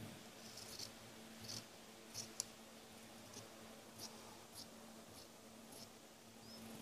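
Scissors snipping through blouse fabric along a chalked cutting line: faint, short cutting clicks at an uneven pace, several times a second at most.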